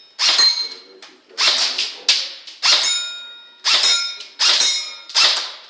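Airsoft gun firing a string of about seven shots, less than a second apart, each a sharp crack followed by a short ringing tail.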